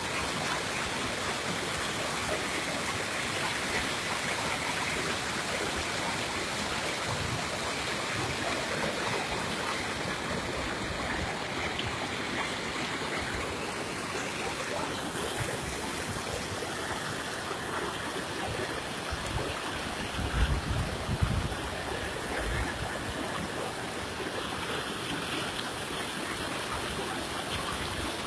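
Floodwater rushing, a steady wash of noise, with a few low thumps about twenty seconds in.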